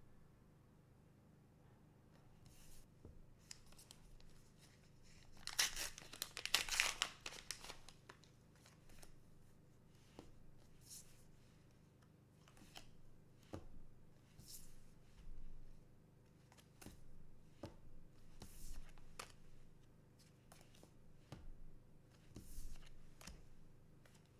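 A trading-card booster pack wrapper torn open for about two seconds, starting about five and a half seconds in, followed by scattered soft clicks and rustles of cards and packaging being handled.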